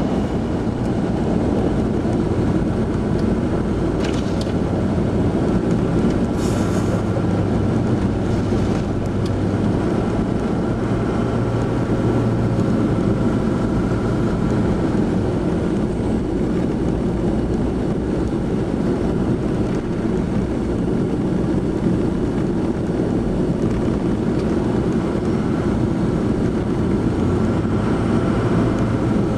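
Steady interior noise of a car driving on a snowy road: engine and road rumble heard from inside the cabin, with a couple of brief clicks about 4 and 7 seconds in.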